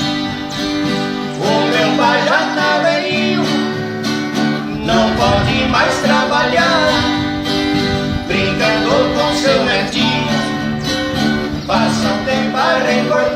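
Acoustic guitars playing an instrumental passage of a sertanejo song: steady strummed chords under a plucked melody line that comes in short phrases about every three seconds.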